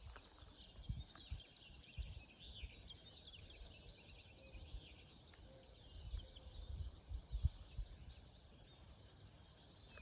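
Several songbirds singing and chirping at once, a busy overlapping chorus of high, quick notes. Scattered low thumps come through on the microphone.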